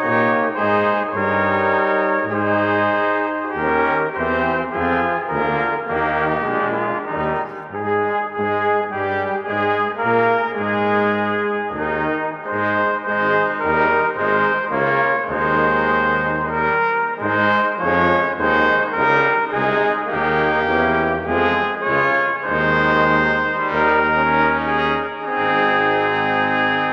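Brass quintet playing, trumpet and trombone together over a low bass line, notes changing about every half second to a second.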